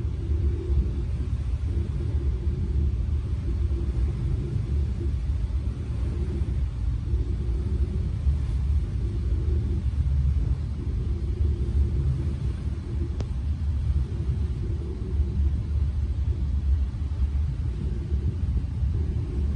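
Steady low rumble aboard a yacht under way: wind buffeting the microphone together with the boat's engine and hull noise, unbroken throughout.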